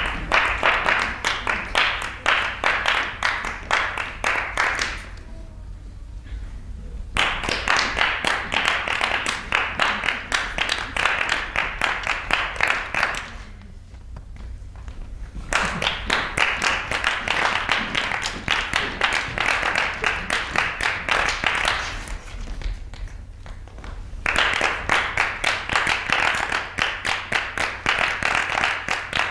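A group of performers clapping their hands in quick, even rhythm, in phrases of several seconds broken three times by pauses of about two seconds. A steady low hum runs underneath.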